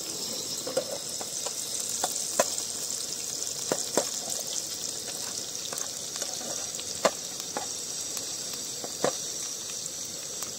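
Sliced onion, garlic, ginger and green chilli sizzling steadily in hot oil in a frying pan, with a spatula stirring and knocking against the pan in a few sharp clicks.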